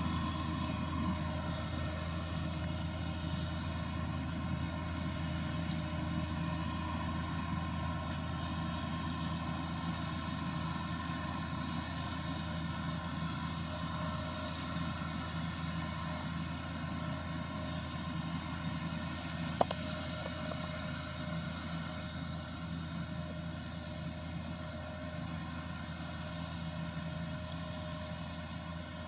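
ROPA Tiger 4 self-propelled sugar beet harvester running steadily while lifting beets: a constant machine hum with several held tones, growing slightly fainter toward the end. One sharp click about two-thirds of the way in.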